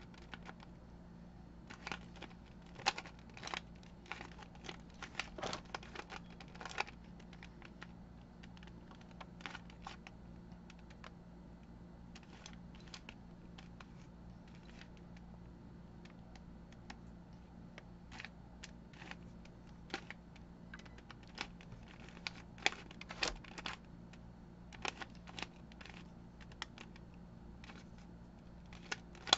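2x2 mirror cube turned by hand: irregular clicks of its plastic layers turning, in quick clusters with pauses between. A faint steady hum runs underneath.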